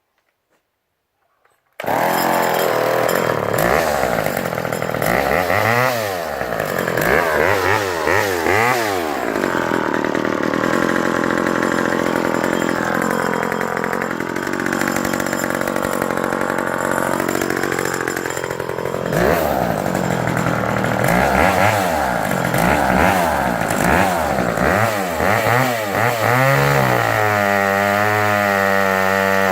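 McCulloch 5-10 two-stroke chainsaw engine coming in abruptly about two seconds in, then revving up and down. It holds a long steady high-speed stretch in the middle, revs up and down again, and settles to a steadier, lower speed near the end.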